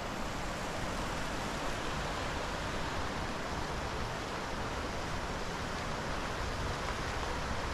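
Steady rushing of a fast-flowing mountain river, an even hiss with no break.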